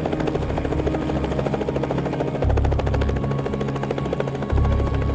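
Helicopter running close by, its rotor blades beating in a fast, even rhythm. A steady high whine sits over the beat.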